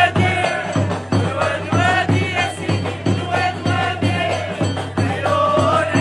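Music: voices singing a chant-like song over a steady drum beat of about two strokes a second.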